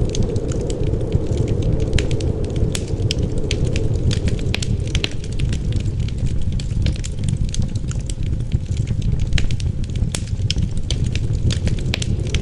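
Wood fire crackling, with many small, irregular pops and snaps over a steady low rumble of wind.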